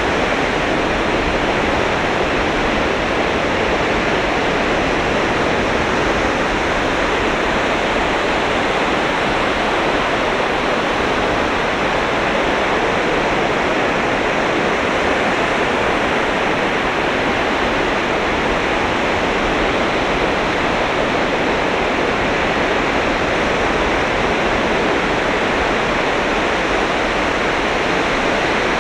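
Sea waves breaking on a beach, heard as a steady, unbroken wash of surf with no single wave standing out.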